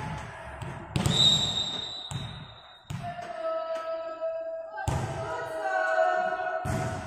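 A volleyball is struck and thuds in a gym hall about every two seconds. After the first hit a referee's whistle sounds, one steady high note held for about two seconds.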